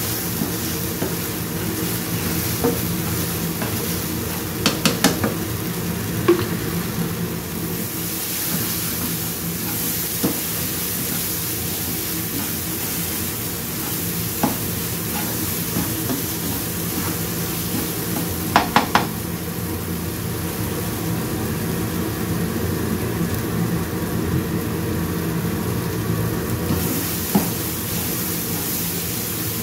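Blended spice paste with galangal, lemongrass and leaves sizzling as it is stir-fried in a nonstick wok, a silicone spatula scraping and stirring it around the pan. Twice there is a quick run of three sharp taps, over a steady low hum.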